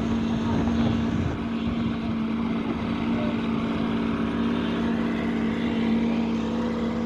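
Truck-mounted concrete pump's diesel engine running steadily at working speed, with a constant drone.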